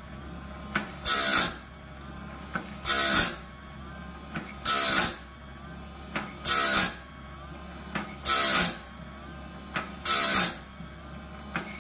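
Woodland Mills bandsaw blade sharpener running on its upgraded faster motor, grinding one tooth after another. A short, harsh grinding rasp comes about every two seconds as the wheel dresses each tooth. Each rasp is led in by a brief whine that slides in pitch, with light clicks in between as the blade is stepped on.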